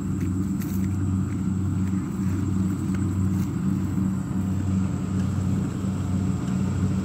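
An engine running steadily: a low hum that wavers slightly in level throughout.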